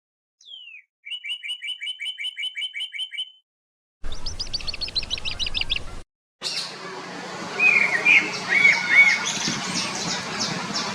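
Bird sounds in three cut-together pieces. First a single falling whistle and a rapid trill of about a dozen notes, then a fast chattering run, then after a short break bird calls over a steady outdoor background with a low hum.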